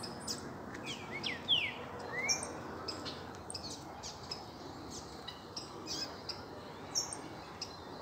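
Several small songbirds chirping and calling, with many short, sharp chirps throughout and a few quick sweeping notes in the first couple of seconds.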